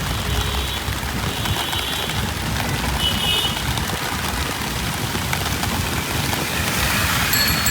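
Rain falling on a city street with vehicle traffic running, a steady wash of noise over a low rumble. A few brief high-pitched tones sound in the first half, and a steady high tone starts near the end.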